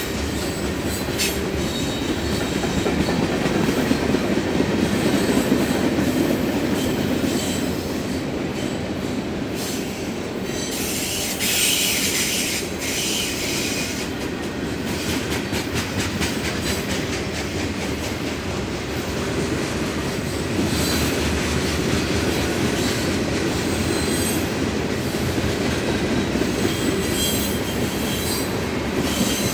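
Freight train cars rolling past: a steady rumble of steel wheels on rail, with clickety-clack over the rail joints and faint wheel squeal on the curve. The noise grows briefly louder and harsher about twelve seconds in.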